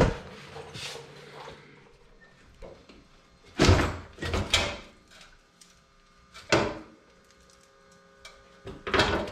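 ATV's rear plastic bracket and body panel being wrestled loose by hand: scattered clunks and rattles of plastic against the frame, a cluster about four seconds in, one more a couple of seconds later, and louder handling near the end.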